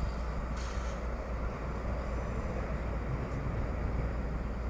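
Steady low rumble of a diesel freight train running at a distance, with a brief hiss about half a second in.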